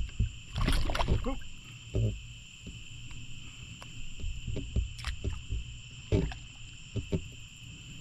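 Irregular low knocks and rustles from a fish and gear being handled in a boat at night, over a steady high-pitched chorus of night insects.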